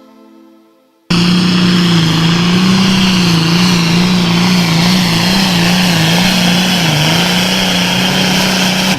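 Super Farm pulling tractor's turbocharged diesel engine running hard at full throttle under load, loud and steady in pitch with a slight waver, starting abruptly about a second in after a short fade of music.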